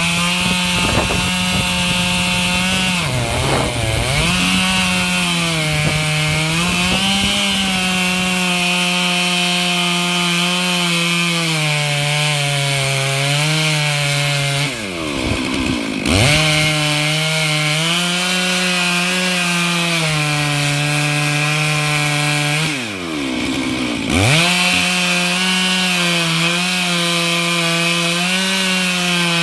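Stihl MS 661 two-stroke chainsaw running at high revs in a Granberg Alaskan chainsaw mill, ripping a pine log lengthwise. The engine pitch wavers slightly as the chain works through the wood. Twice, about halfway and about three-quarters through, the engine speed drops sharply and then climbs back to full revs.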